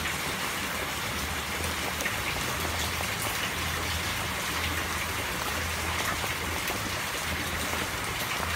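Pot of salted water boiling hard around potatoes: a steady hiss and bubbling. A fork poked in among the potatoes gives a few faint clicks against them and the pot.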